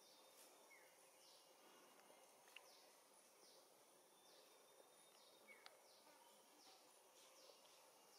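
Near silence: faint forest background with short high chirps about once a second and a couple of soft clicks.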